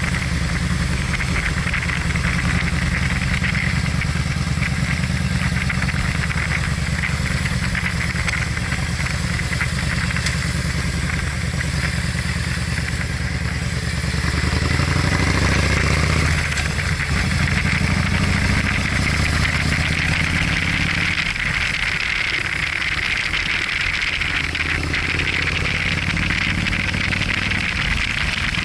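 Motorcycle engine running under way, heard from the handlebar, with a steady hiss over it. The engine swells briefly about halfway through, and its low note thins out over the last third.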